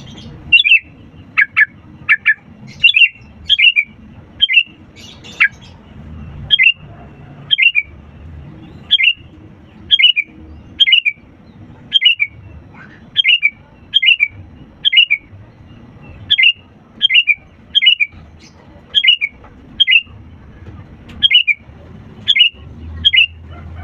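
Sooty-headed bulbul (kutilang) calling over and over: a short, sharp note repeated about once a second, some two dozen times.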